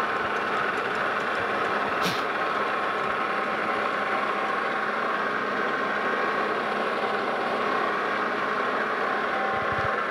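Lodge & Shipley metal lathe running steadily between thread-cutting passes, its drive and gears giving a steady hum with several held tones. A single sharp click comes about two seconds in.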